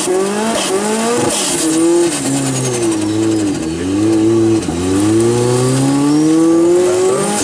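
Formula Offroad buggy's engine revving hard under load, its pitch rising and dropping several times with two short lifts off the throttle midway, then climbing and holding high near the end.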